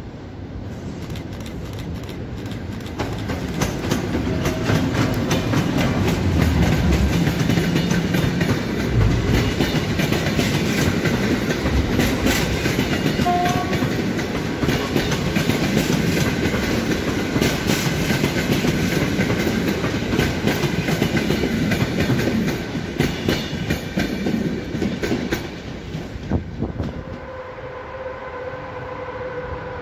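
Polish EP09 electric locomotive hauling a rake of Intercity passenger coaches into the station, close by, with the wheels clattering over the rail joints. It is loudest from about four seconds in until a little past twenty seconds. Near the end the sound drops and a falling whine is heard.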